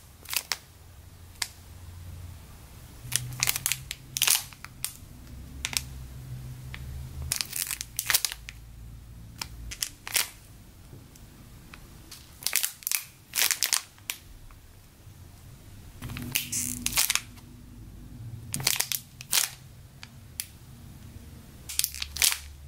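Clear plastic bags crinkling in short, irregular bursts as bagged foam mini-toast squishies are handled and squeezed.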